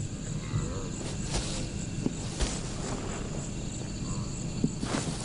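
Night insects, crickets, trilling steadily, with a few soft crackles of dry grass under a stalking lioness's paws.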